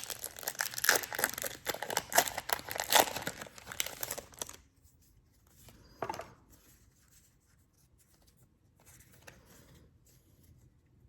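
Pokémon card booster pack wrapper being torn open and crinkled for about four and a half seconds, then faint rustling as the cards are handled, with one short rustle about six seconds in.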